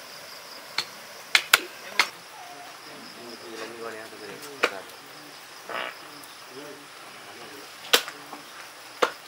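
Sharp knocks of a heavy knife chopping raw pork on a wooden chopping block, four in the first two seconds, then single knocks a few seconds apart. Insects hum steadily behind, with faint voices in the middle.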